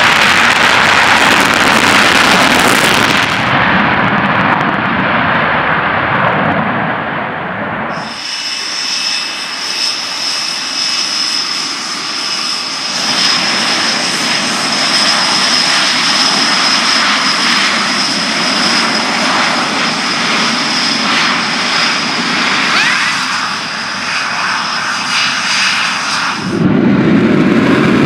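Panavia Tornado jet engines: first the loud, full noise of the takeoff run with afterburners lit; then, from about 8 s in, a steady high-pitched whine from a Tornado's twin RB199 turbofans taxiing close by. Near the end the sound turns deeper as a Eurofighter Typhoon's engines take over.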